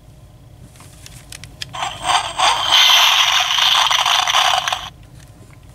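Hasbro Titan Hero Tech Thor action figure playing an electronic battle sound effect from its small built-in speaker when its chest button is pressed: a tinny, harsh hiss lasting about three seconds, with a few light clicks before it.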